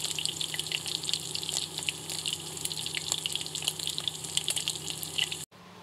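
Beef short ribs searing in hot fat in an enamelled cast-iron pot: a steady sizzle full of small crackles and spits, over a low steady hum. The sizzle cuts off suddenly about five and a half seconds in.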